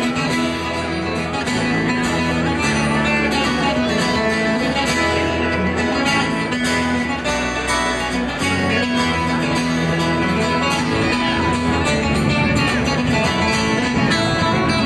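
Live folk band playing an instrumental tune: fiddle melody over acoustic guitars and electric bass.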